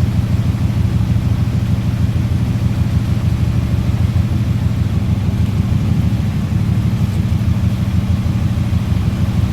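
An engine idling steadily, a low, even running note with a fast pulse and no change in speed.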